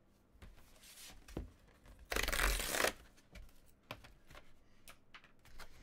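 A paper envelope torn open along its perforated tear strip in one loud rip of just under a second, about two seconds in, with light rustling and handling of the paper before and after.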